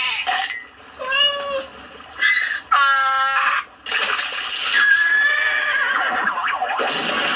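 Cartoon sound effects: three short, squeaky animal-like squeals with warbling pitch in the first four seconds, the longest about three seconds in. They are followed by a dense, noisy stretch of comic effects with a held high whistle-like tone about five seconds in.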